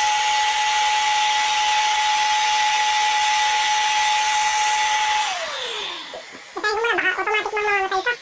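Electric air pump of a Bestway airbed running steadily with a high whine and a rush of air as it inflates the bed, then switched off about five seconds in, its pitch falling as it spins down. A voice follows briefly near the end.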